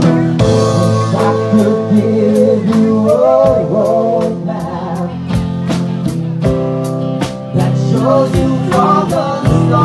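Live band music: a bowed electric cello plays over acoustic guitar and a drum kit, with a wavering melody line with vibrato in the middle and again near the end.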